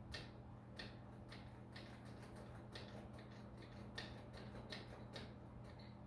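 Faint, irregular light clicks, roughly two a second, over a steady low hum.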